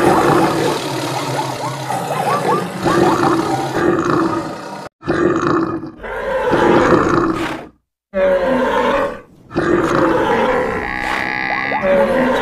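A string of animal calls and roars from a mix of wild and farm animals, spliced together as sound effects. It cuts out abruptly twice, about 5 and 8 seconds in.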